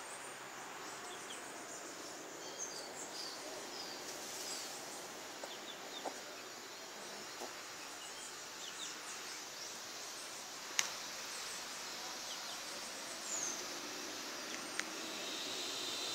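Faint chirps of birds scattered over a steady background hiss, with a sharp click about eleven seconds in and another near the end.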